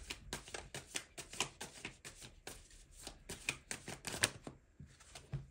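A tarot deck being shuffled by hand: a quick, uneven run of card flicks and taps, several a second, that dies away about four and a half seconds in.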